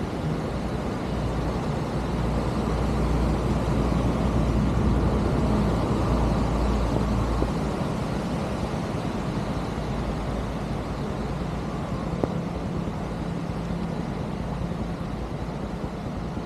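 Heavy rain falling and floodwater running, as a steady noise under a low rumble that grows louder for a few seconds in the middle, then eases.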